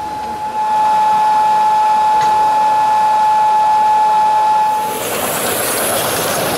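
A model locomotive's whistle holding one long, steady, high note that cuts off about five seconds in, followed by a loud, steady hiss.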